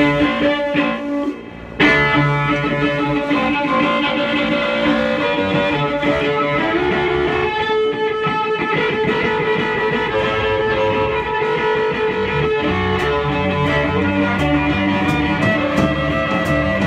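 Live punk band playing: electric guitar, bass, drums, fiddle and banjo. The band stops short about a second in and crashes back in together, cymbals ringing through the rest.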